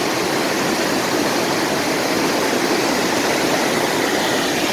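A waterfall's rushing water: a loud, steady, unbroken rush.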